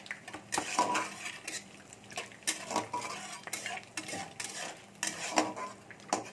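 A metal spatula scrapes and clinks against a metal kadai in repeated irregular strokes, roughly two a second. It is stirring bay leaf, dried red chillies and cumin in hot oil, which sizzles faintly underneath.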